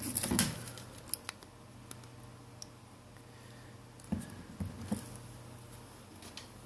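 Small sharp clicks and rattles of spring holding clamps being handled and clipped onto a phone to hold its new screen assembly, in a cluster at the start and again about four to five seconds in.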